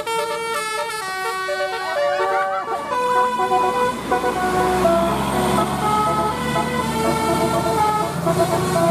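Multi-tone musical vehicle horn playing a tune of held notes that step from pitch to pitch, with a brief siren-like glide about two seconds in.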